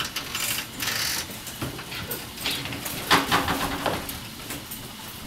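Rustling and flapping of a fabric umbrella being opened and shaken, in several rough bursts, the loudest a little past three seconds in.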